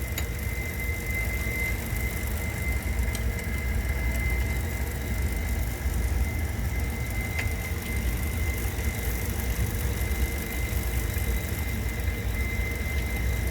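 Empty rotating coal feed tube of an AA 130 turning on its new, smaller bearings: a steady low rumble with a thin, constant high whine and a few faint ticks as it rolls smoothly.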